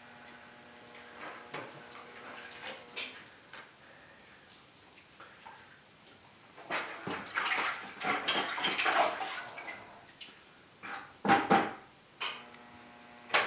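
A hand stirring and sloshing liquid pottery glaze in a plastic bucket to check its thickness, louder and busier in the second half, with two sharp splashes near the end. The glaze is too thin.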